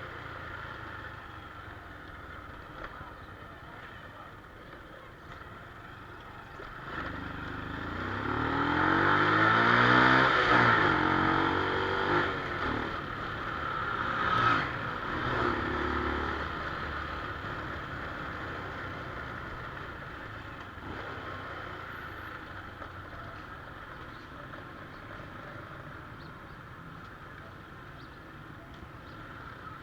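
A motorcycle engine climbs in pitch to a loud peak about ten seconds in, then falls away over the next few seconds, over a steady low background hum. A couple of sharp clicks come near the middle.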